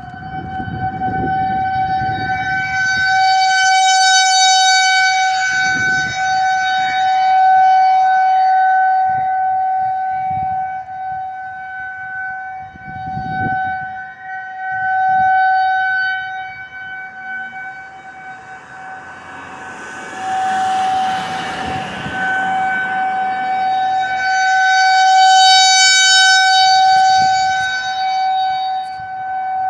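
Outdoor emergency warning siren sounding a steady, unwavering tone during a test. The pitch holds level while the loudness swells and fades every few seconds as the rotating siren sweeps toward and away.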